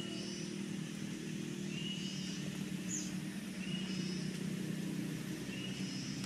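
Steady low hum of a running motor, with a short high-pitched chirp repeating about every two seconds.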